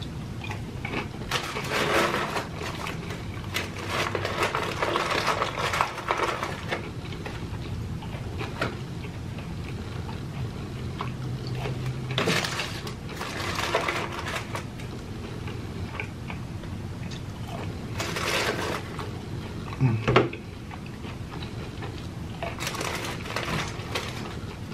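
Chewing and crunching of fried chicken nuggets, in about five bouts of crunchy bites separated by quieter chewing, with one dull thump near the end.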